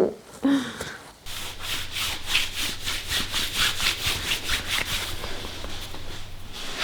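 Hands rubbing briskly back and forth over a patient's back in massage, about four or five strokes a second, starting about a second in. A low steady hum runs underneath.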